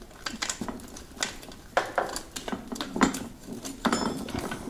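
Irregular small clicks and rattles of plastic plug connectors and wires being wiggled and pulled out of a Yamaha PW-X e-bike motor's housing.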